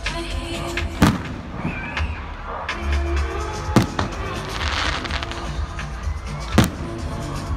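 Aerial fireworks shells bursting with three sharp bangs, about a second in, near the middle and near the end, over loud music with a heavy bass line.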